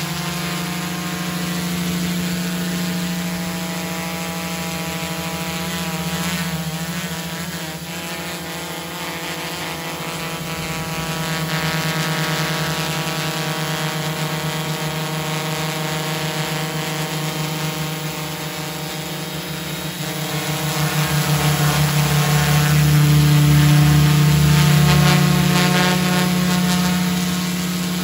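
Electric motors and propellers of a TBS Discovery quadcopter running steadily while it hovers low, a constant pitched hum. It swells louder about two-thirds of the way in, then eases near the end.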